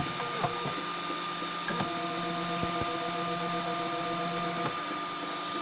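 Homemade 3D printer's stepper motors running as the print head moves. There are a few short ticks in the first two seconds, then a steady pitched whine held for about three seconds, over a constant thin high tone.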